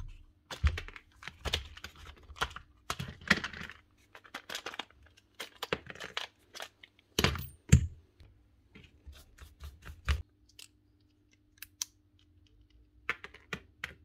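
Irregular plastic clicks, knocks and clatter as a DeWalt cordless impact driver is taken apart by hand: its housing halves are pulled open and parts are set down on a concrete floor, with a few sharper knocks about 7 to 8 seconds in and again about 10 seconds in.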